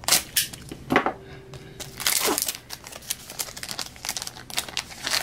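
Wrapper of a 2017-18 Donruss basketball card pack crinkling and tearing as it is ripped open by hand, in a run of irregular crackles.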